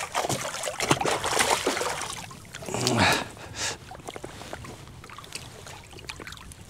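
Water splashing and sloshing at the side of a boat as a small hooked fish is drawn in and landed, in irregular bursts over the first three seconds or so, then quieter.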